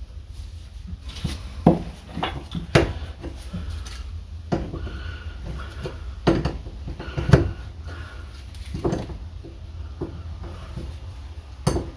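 Channel-lock pliers and an adjustable wrench clinking and knocking against a hydraulic hose fitting, in irregular sharp metal taps, as the line's nut is worked loose.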